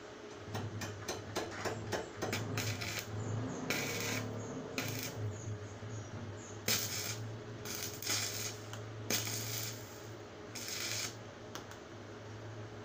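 Clicks, rattles and short scrapes from hand work on a metal hanger rod, the scrapes coming every second or two, over a steady low hum.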